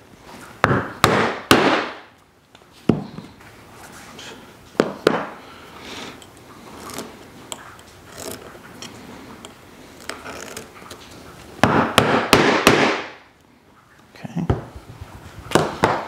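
Leather slot punch being struck through a belt strap on a poly cutting board: several sharp blows about a second in and another burst around twelve seconds in, with single knocks and quiet handling scrapes between.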